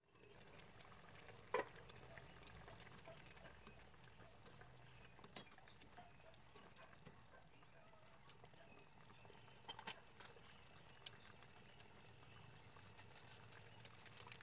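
Chicken afritada simmering in a pan, the sauce bubbling faintly with scattered small pops and crackles; one sharper click about a second and a half in.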